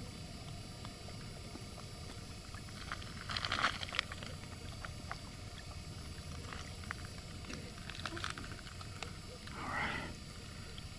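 Quiet lakeshore ambience: a steady low wash of wind and water, with a brief rustling scrape about three and a half seconds in and a few faint clicks later.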